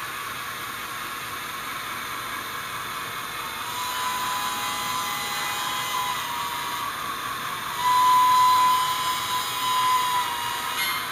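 Tsunami sound decoder in a Bachmann HO geared steam locomotive model, playing a steady steam hiss through its small speaker. Held whistle tones come in about four seconds in, with the loudest and longest whistle about eight seconds in.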